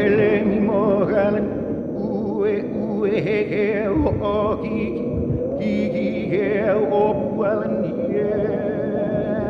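Background music with a sung melody, the voice held on long notes with a wavering vibrato.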